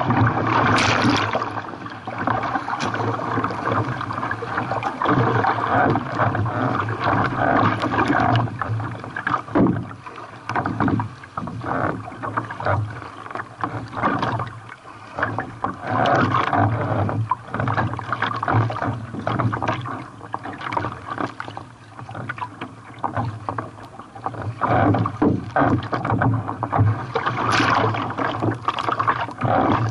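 Sea water splashing and rushing around a kayak in surf, with irregular splashes throughout. It is louder near the start and again towards the end.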